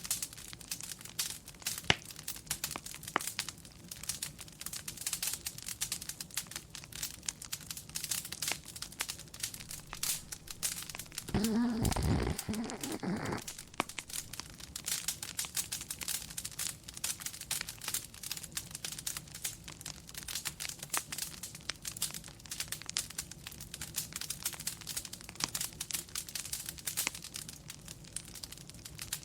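Wood fire crackling steadily, a constant run of small pops and snaps. About halfway through, a dog snores once, for about two seconds.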